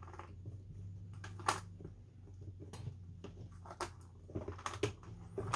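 Faint clicks and light knocks as hands handle small parts and wiring inside an open ammo-can speaker box, the sharpest about one and a half seconds in and a few more near the end, over a steady low hum.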